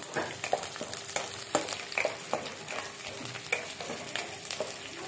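Small onions, garlic and green chilli sizzling in sesame oil in a pan, stirred with a wooden spatula that scrapes and taps against the pan at irregular intervals over a steady frying hiss.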